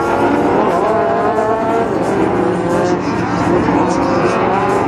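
Short-course off-road race trucks' engines racing around a dirt track, several engines at once, their pitch rising and falling as they rev up and back off through corners and jumps.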